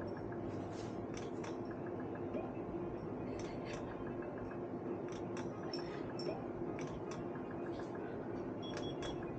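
Bar slot machine in play: irregular clicks and a few short, high electronic beeps over a steady background hum.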